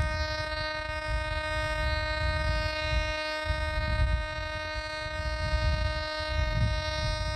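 Metal detector giving a steady, unbroken buzzing tone, over a low, uneven rumble.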